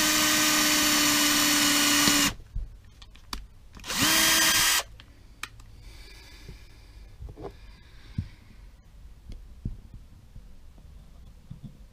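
Electric drill boring small pilot holes into wooden topwater lure bodies for the line-tie screw eyes: two runs, the first about two and a half seconds and the second about a second, each spinning up with a rising whine and then holding steady. Light knocks and clicks of the wooden pieces being handled follow.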